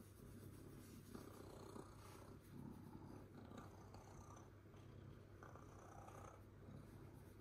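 Domestic cat purring faintly and steadily while being stroked.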